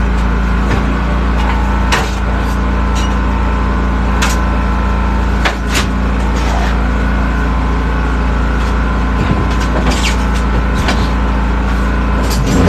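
A steady engine drone from running equipment, with scattered knocks and clanks from a used light-truck tire being worked onto its wheel on a tire-changing machine.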